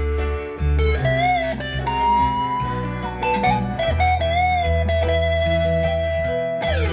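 Drumless rock band rehearsal taped on a reel-to-reel recorder: an electric guitar plays a sustained lead with string bends over held bass notes, then slides quickly down in pitch near the end.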